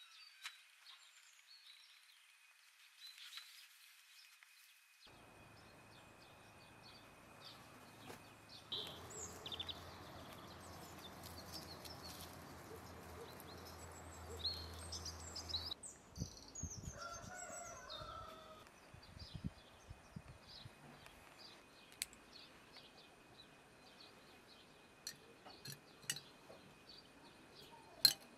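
Faint rural outdoor ambience with small birds chirping throughout. A rooster crows once, about two-thirds of the way through, and there is a single sharp click near the end.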